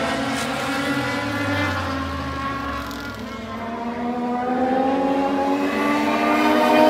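Legends race cars' Yamaha motorcycle engines running at racing speed. One car's engine fades away, then the pack's engines grow louder and rise in pitch as they approach near the end.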